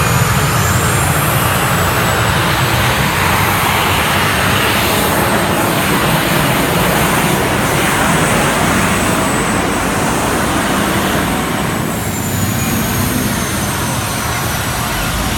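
Modified pulling tractor's engine running flat out as it drags a weight-transfer sled down the track, a loud, steady blare that eases a little about twelve seconds in.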